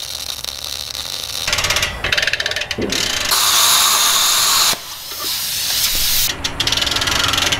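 Plasma cutter cutting a notch into the end of a steel pipe: a steady hiss of the cutting arc and air, in several stretches that start and stop, loudest for over a second near the middle before cutting off suddenly.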